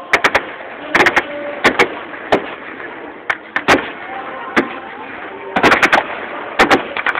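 Gunfire: irregular shots, some single and some in quick bursts of two to four, over a steady background noise.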